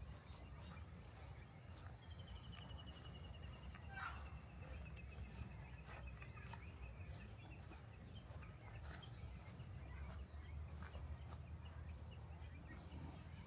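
Faint outdoor bird calls: a long, rapid, high trill lasting a few seconds, a short falling call partway through, and scattered ticks over a steady low rumble.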